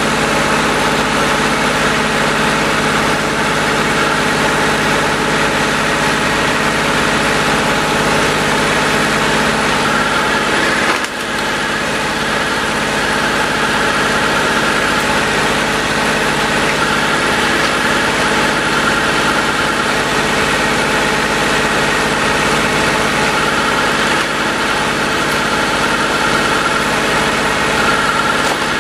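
Tractor engine running steadily at constant speed, powering a tractor-driven log splitter, with a whining note above the engine sound. The level dips briefly about eleven seconds in.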